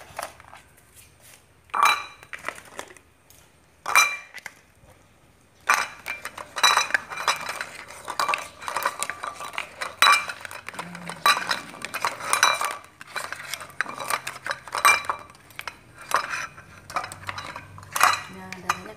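Plastic spoon and hard-boiled eggs knocking and scraping against a bowl as the eggs are rolled in red food colouring. A few separate clinks at first, then a quick, busy clatter from about a third of the way in.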